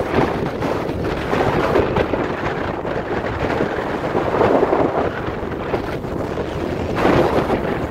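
Wind rushing over the microphone while riding fast downhill on snow, mixed with the scraping hiss of edges carving across packed, tracked-up snow. The rushing swells and eases every couple of seconds, as with each turn.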